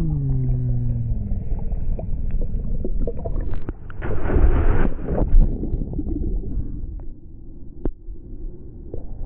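Ocean surf and water rumbling and sloshing close to the microphone, with a louder rush of water about four seconds in.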